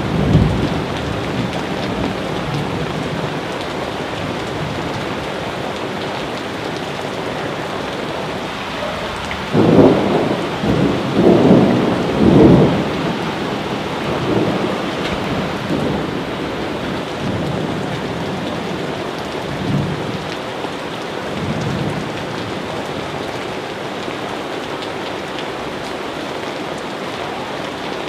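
Steady heavy rain falling, with thunder rolling through it. A loud cluster of rumbles comes about ten seconds in and lasts a few seconds, then fainter rumbles die away over the following ten seconds.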